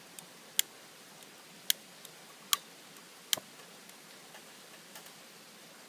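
Four or five sharp, separate clicks and taps at uneven spacing, from camp cooking gear being handled, over a faint steady hiss.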